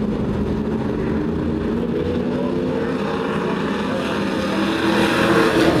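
A pack of race trucks' engines running together at speed on the track. The sound gets louder about five seconds in as the field comes closer under power.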